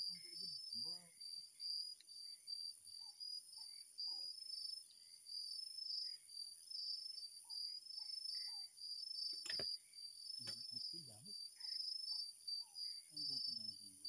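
Night insects calling without a break: a steady high-pitched drone with a pulsing, rhythmic chirp just below it. A single sharp click comes a little past halfway.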